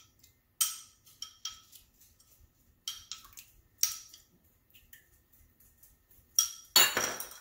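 A utensil clinking against a dish as dipping sauce is put into it: several separate ringing clinks, then a longer, louder clatter near the end.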